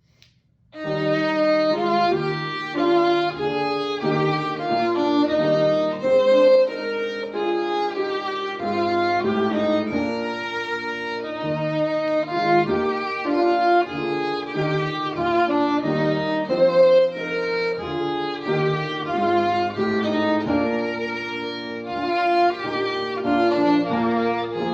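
Music led by a violin playing a continuous melody over sustained accompanying notes, starting about a second in.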